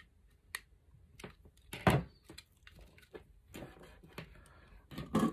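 Scattered light clicks and knocks of a screwdriver and a plastic wall switch plate being handled while its terminal screws are worked, the loudest knock about two seconds in.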